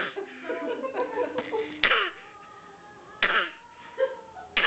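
Baby coughing: four short, sudden coughs, spaced a second or more apart.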